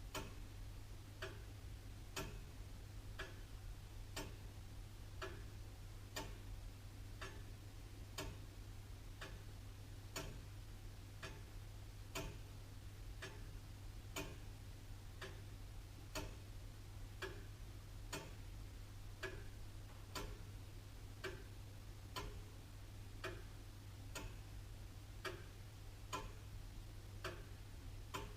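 Antique William Holliwell of Liverpool clock ticking steadily, about one tick a second, over a faint low hum.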